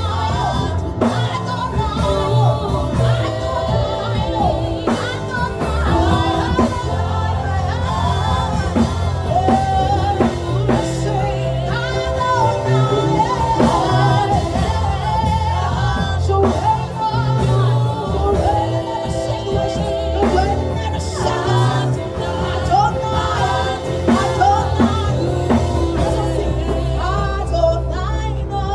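Live worship music: a band with bass and drum kit plays under sung or wordless vocals.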